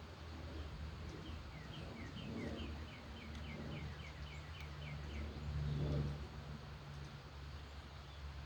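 A songbird sings a quick series of about a dozen short, high, downslurred notes, about three a second, lasting some four seconds. A steady low rumble runs underneath and swells briefly about six seconds in.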